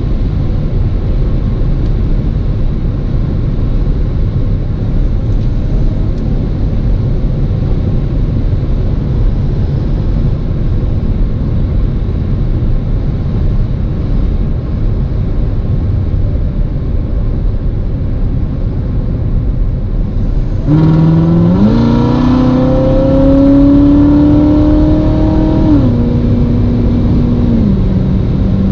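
2019 Corvette ZR1 driving: a steady low drone of road and engine noise, then about 21 seconds in its supercharged 6.2-litre V8 opens up and the revs climb under acceleration. About five seconds later the engine note drops sharply with an upshift, then eases lower again near the end.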